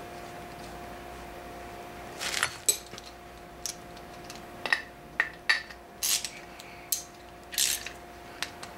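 Metal hand tools and small engine parts clinking and rattling as they are picked up and set down on a cluttered workbench: quiet for about two seconds, then a run of sharp clicks and short clanks with one brief scrape, over a steady low electrical hum.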